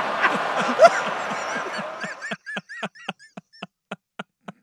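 A crowd laughing loudly at a punchline. About two seconds in this gives way to a man's high, wheezing laugh in short rapid gasps, about four a second, that tails off.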